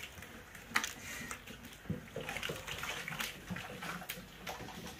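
A wooden stirrer working thick, wet saag of mustard greens and spinach in a large aluminium pot: irregular squelching, with several short knocks and scrapes of the wood against the pot as soaked gram flour is mixed in.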